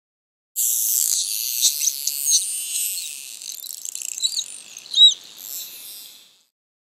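Dolphins whistling and clicking underwater: high, rising-and-falling whistles mixed with a fizz of rapid clicks. The loudest whistle comes about five seconds in. The sound fades out shortly before the end.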